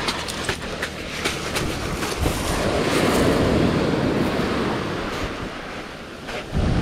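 Surf washing up a pebble beach, swelling and easing, with wind buffeting the microphone and a loud gust near the end. A few sharp clicks sound in the first second or two.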